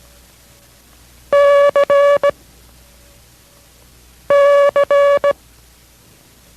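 Morse code letter C, dah-dit-dah-dit, sent twice as a steady code-practice tone, the second about three seconds after the first.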